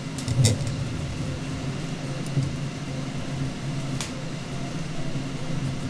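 Steady low mechanical hum, like fans or an air conditioner running, with a few light clicks from hands working a graphics card's fan cable connector; the loudest click is about half a second in.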